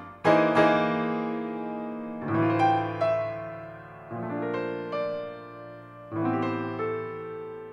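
Piano playing chords in a contemporary jazz-tinged chamber piece. Each chord is struck and left to ring and fade: two quick ones at the start, then one about every two seconds.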